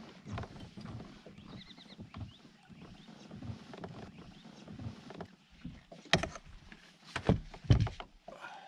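Knocks and bumps against a Hobie fishing kayak's plastic hull as a hooked fish is handled aboard, with a short run of quick high ticks about one and a half seconds in and three loud thumps in the last few seconds.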